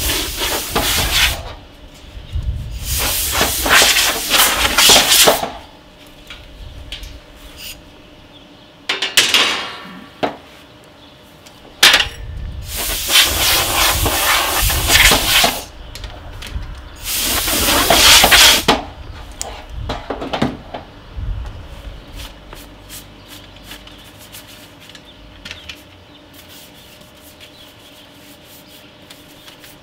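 Compressed-air blow gun on a compressor hose, fired in five hissing blasts of one to three seconds each to blow dust off a PC case panel. After about 19 s the blasts stop and only light clicks and knocks from handling the panel remain.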